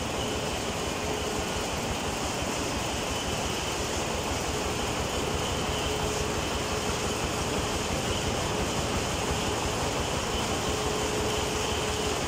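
Organic fertilizer production line machinery running steadily: conveyors and a rotary drum screen giving an even mechanical noise, with a faint hum that comes and goes.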